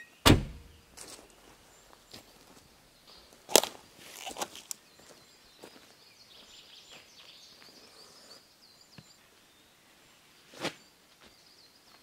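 Irregular thumps and knocks of camping gear being unloaded and set down, loudest about a quarter-second in, with a cluster of knocks around four seconds in and another thump near the end. Faint high chirping runs between them.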